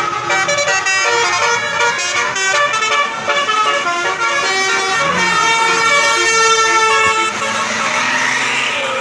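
Basuri musical bus horn playing a melody of quick stepped notes in the 'telolet' style. About three-quarters of the way through, a rising sweep joins in.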